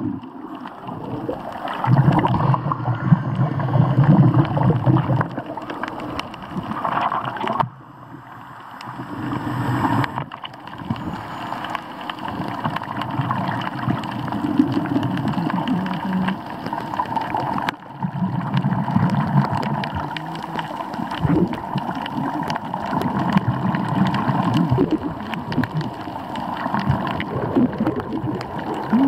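Underwater water noise and gurgling picked up by a camera held below the surface while snorkeling, rising and falling in loudness with brief lulls about 8 and 18 seconds in.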